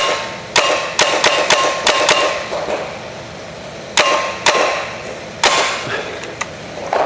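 Paintball markers firing reusable reballs: about six quick shots and impacts in the first two seconds, then single ones about four and five and a half seconds in. Several carry a brief ringing clang.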